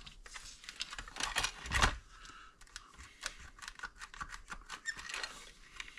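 Hands working on a power supply's casing: an irregular run of small clicks, taps and scrapes of plastic and metal parts, a little louder in the first couple of seconds.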